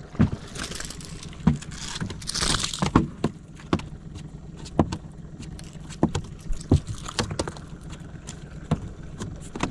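Irregular clicks and knocks, with two short hissy splashes in the first few seconds, as a freshly caught fish and fishing gear are handled aboard a small boat.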